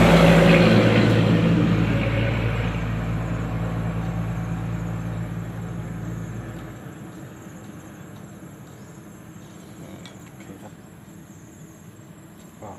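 A steady engine hum, loud at first, fades away over about seven seconds. Faint insect chirping continues underneath.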